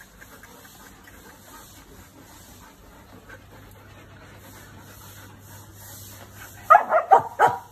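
Standard poodle giving several short, loud barks in quick succession near the end, after a stretch of faint low-level sound.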